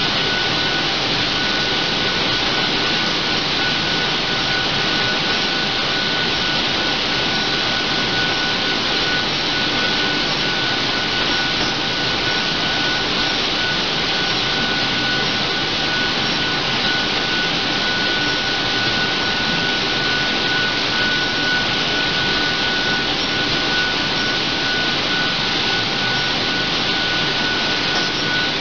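Steady machine noise of a turntable stretch wrapper at work wrapping a pallet in stretch film, amid packing-plant machinery: an even hiss with a steady high whine.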